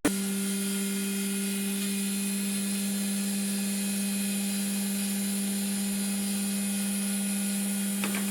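Electric motor of a homemade wood router running steadily with an even hum, with a brief click near the end.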